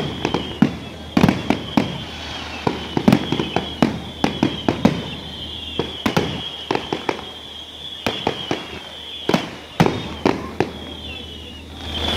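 Fireworks display: aerial shells bursting overhead in a rapid, irregular volley of bangs, several close together at times.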